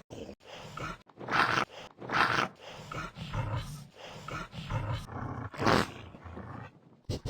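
An animal's voice in a series of short, rough calls about a second apart.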